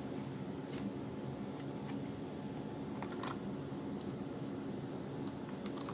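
Light, scattered clicks and taps from a small plastic camera and its packaging being handled, with the clearest click about three seconds in, over a steady low hum.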